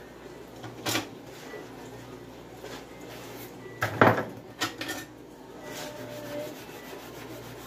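Dishes being washed by hand in a sink: pots, cups and utensils clattering, with a loud knock about four seconds in and a few smaller clinks just after, over a steady low hum.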